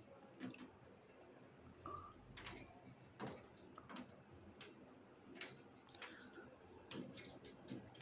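Alexandrine parakeet climbing around its wire cage, its beak and claws giving faint, irregular clicks and taps on the metal bars. A brief faint squeak about two seconds in.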